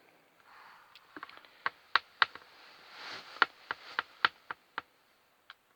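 A run of light, sharp clicks and taps, about a dozen over some four seconds and irregularly spaced, with a soft rustle between them: a small sculpted figure being handled on a hard work surface.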